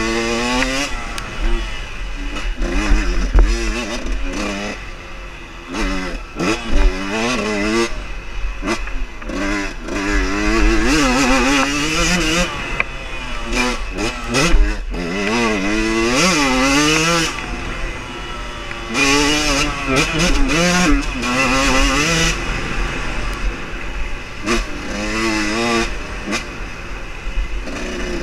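Enduro dirt-bike engine revving up and down over and over as the rider works the throttle, its pitch rising and falling every second or two.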